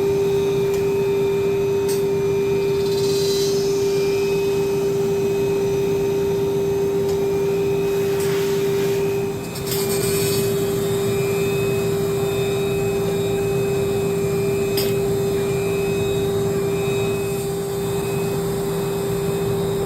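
Automated grinding-wheel processing machine running: a steady motor hum with one constant pitch over a hiss, briefly dipping about halfway through, with a few light clicks.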